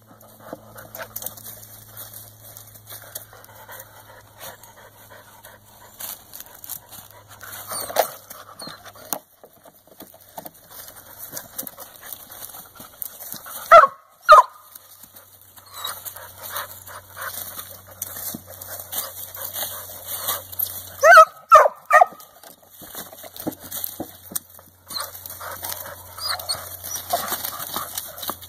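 Dogs scrabbling and rustling in dry leaves around a log, hunting a chipmunk hidden in it. A dog gives two sharp barks about halfway through and a quick run of three more a little later.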